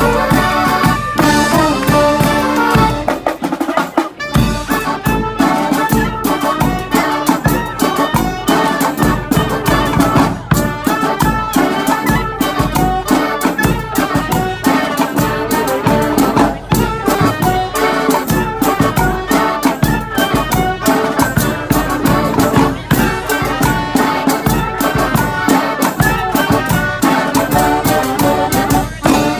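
Live brass street band playing a tune: horns over a steady drum beat.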